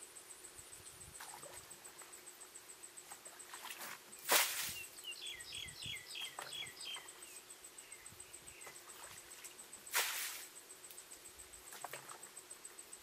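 Water tipped from a plastic bucket splashes into a shallow muddy ditch, twice: each splash lasts about half a second, the two about six seconds apart. Between them a bird sings a short run of quick, falling chirps.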